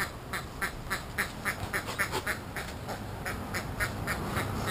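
Ducks quacking in a fast, even run of about three to four quacks a second.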